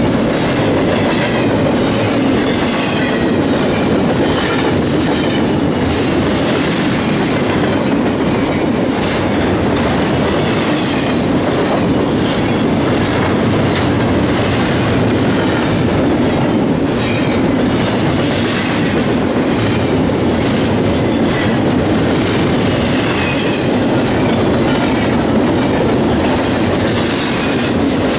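Double-stack intermodal container train rolling past: a steady loud rumble and rapid clatter of steel wheels over the rail joints, tailing off at the very end as the last car goes by.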